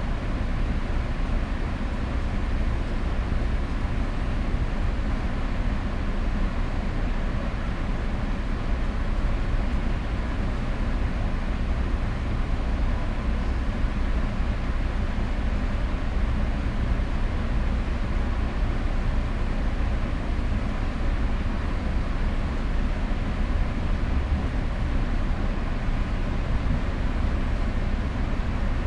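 Inside a fast-moving train carriage: a steady deep rumble with rushing noise over it, unchanging throughout.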